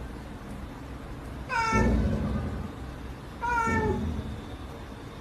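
Cat meowing twice, two short calls about two seconds apart, each dropping a little in pitch at the end.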